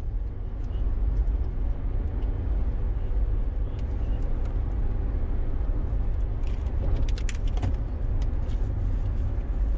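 Inside a car cruising at about 50 mph: a steady low rumble of tyres and engine, with a few faint clicks about seven seconds in.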